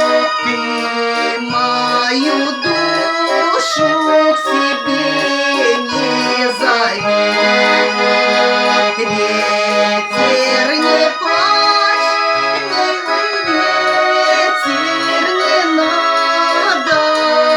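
Garmon (Russian button accordion) playing an instrumental passage of a folk song without singing: a melody in held reedy notes over low bass-button chords.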